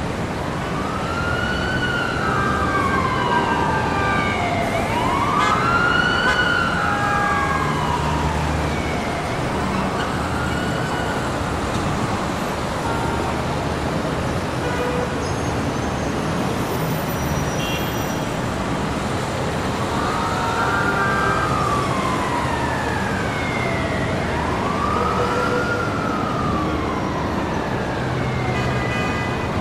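City traffic ambience with an emergency vehicle's wail siren sweeping slowly up and down, each rise and fall taking about four seconds. The siren drops out for several seconds midway, then returns. Steady traffic noise runs underneath, with short horn blasts here and there.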